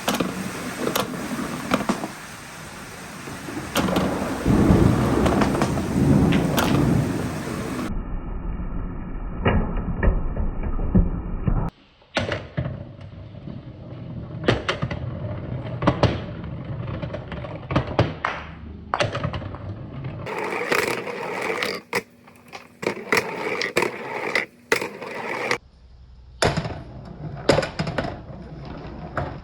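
Marbles rolling along wooden marble-run tracks: first a steady rolling rumble, then many sharp, irregular clicks and clacks as the balls knock against the wood and each other.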